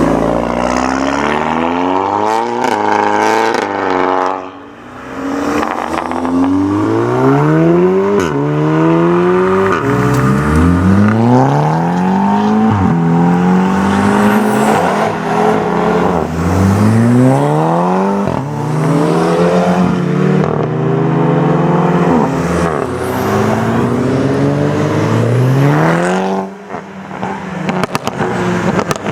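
Volkswagen Golf engine under hard acceleration: the pitch climbs through each gear and falls back sharply at each upshift, over and over in quick succession. It briefly goes quieter about four and a half seconds in and again near the end.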